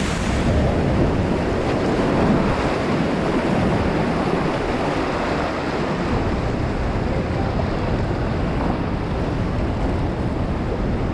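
Steady rush of a river rapid's whitewater heard from a kayak on the water, with wind buffeting the action-camera microphone.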